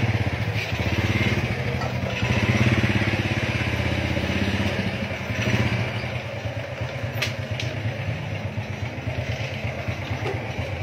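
Motorcycle engine running steadily, with a hiss over it that eases off after about five seconds and a single sharp tick about seven seconds in.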